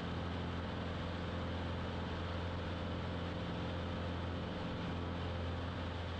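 Grumman AA-5 single-engine light airplane's piston engine and propeller running at takeoff power in the climb just after lift-off: a steady low drone.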